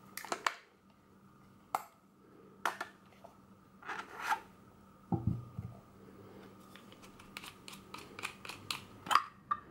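Plastic clicks and scrapes from handling the pistol grip of a Braun Nizo 561 Macro Super 8 camera as its battery holder is worked out of the grip. There are scattered sharp clicks, a dull knock about five seconds in, then a quick run of clicks near the end.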